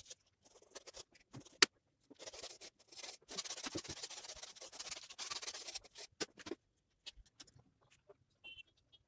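Bristle paintbrush scrubbing paint onto canvas: a dense scratching that runs for about four seconds in the middle, with scattered light taps and one sharp click near the start.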